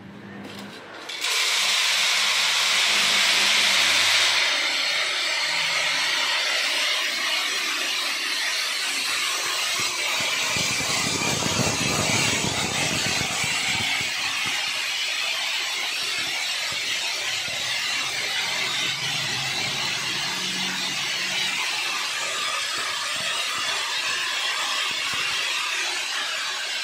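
Soybean seeds running down the galvanized sheet-steel spirals of a gravity spiral seed grader, a steady dense hiss of grain on metal. It starts about a second in and is loudest for the next few seconds before settling to an even level.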